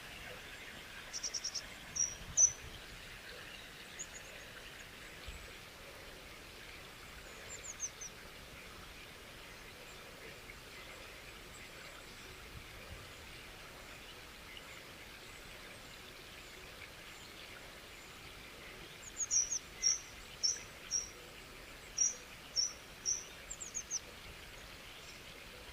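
Steady outdoor background hiss with small birds chirping: a few short high chirps early on, then a quick run of about a dozen chirps near the end.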